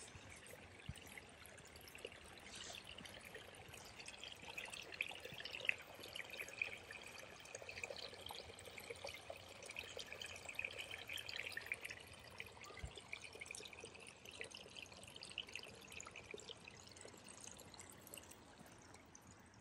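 Small shallow creek trickling and babbling over stones and debris, faint and continuous.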